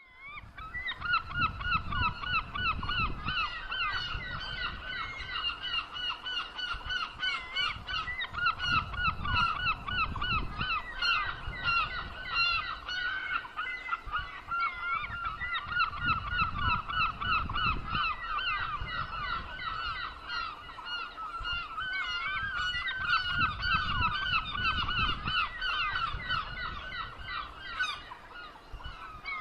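A flock of seagulls calling constantly, many harsh, overlapping cries at once. Beneath them is a low rumble that swells every few seconds.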